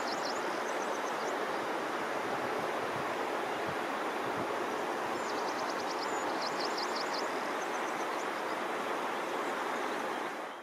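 Steady outdoor rushing noise of moving water or air, even and unchanging, fading out at the very end. Above it a small bird gives rapid high trilled calls in short runs, once just after the start and again from about halfway to three-quarters of the way through.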